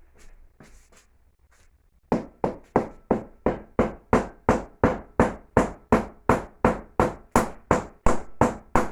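A few light knocks, then from about two seconds in a steady run of sharp hammer blows, about three a second, on a loose brick in a fireplace's cracked front wall, driving it inward. The brick was barely held in its mortar.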